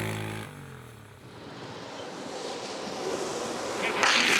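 A vehicle engine's steady note drops in pitch and fades about half a second in. Then a rushing road and wind noise builds, loudest near the end.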